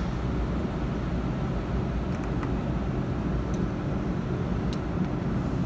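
Steady low rumble of workshop background noise, with a few faint sharp clicks in the middle.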